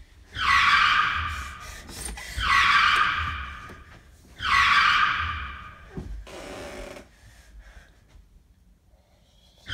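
Three loud, high-pitched screams about two seconds apart, each starting sharply and fading away, then a fainter, lower cry about six seconds in.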